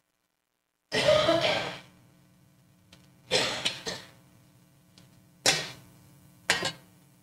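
Brass communion ware being handled on a table: a metal lid lifted off a tray and trays moved and set down, giving four separate sharp clatters and clinks, the first and longest about a second in, a double one in the middle and two short ones near the end.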